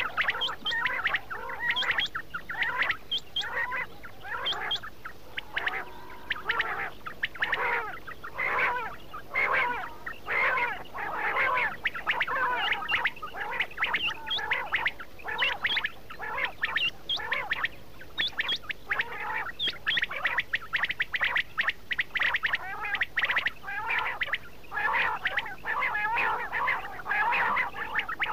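A flock of quail (batair) calling all at once: many short, sharp chirping calls overlapping in a dense, unbroken chatter. It is the kind of quail-call recording played by hunters to lure quail in.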